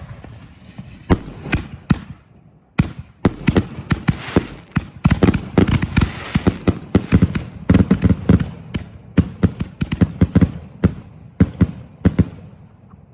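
Consumer firework finale of aerial colour shells and salutes going off: a few separate launches and bangs, then from about three seconds in a dense, rapid string of loud bangs, several a second, that stops about a second before the end.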